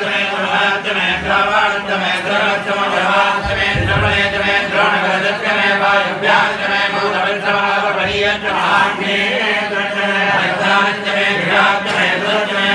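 A group of Hindu priests chanting Sanskrit mantras together in a steady, continuous recitation.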